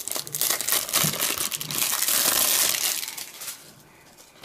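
Plastic shrink-wrap being peeled and crumpled off a DVD case: a dense crinkling that is loudest about two seconds in and dies away by about three and a half seconds.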